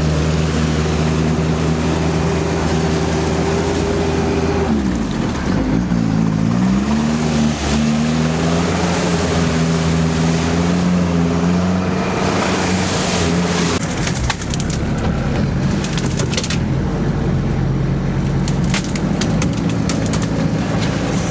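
Sherp ATV's diesel engine running steadily as it drives, its pitch dipping and climbing again about five seconds in. From about fourteen seconds in the engine drops lower and a dense crackle of sharp clicks, like twigs and debris snapping under the tyres, comes over it.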